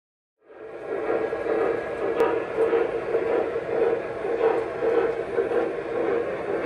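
Onboard sound system of a Lionel Delaware & Hudson RS-11 O-gauge model diesel locomotive playing a diesel engine running. It starts about half a second in and carries on steadily, with a pulsing rumble.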